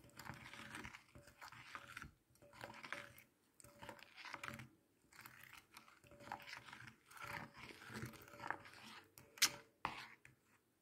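Spoon stirring and scraping a thick, gritty clay paste around a glass bowl, in repeated strokes about once a second, with a sharp click near the end.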